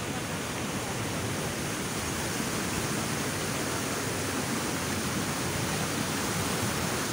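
Steady rush of water pouring over a low brick weir and churning white below.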